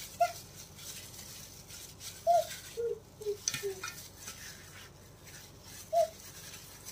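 Plastic-gloved hand rubbing spice paste into raw rabbit and chicken pieces in a steel tray, with faint squishing and rustling. Short chirp-like calls are the loudest sounds: one near the start, a quick run of three falling in pitch in the middle, and another near the end.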